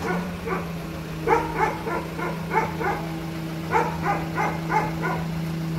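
A dog barking repeatedly in quick runs of short yelps, over a steady low hum.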